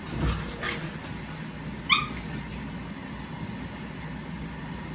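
Puppies at play: a couple of faint yips in the first second, then one short, sharp, high-pitched puppy yelp about two seconds in, typical of a nip during play-fighting.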